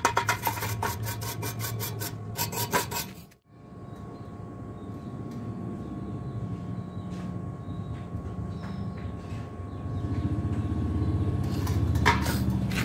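Rapid, repeated metal-on-metal scraping strokes as slag is chipped off a fresh stick-weld bead. These stop abruptly about three seconds in, and a steady low rumble follows, growing slightly louder near the end.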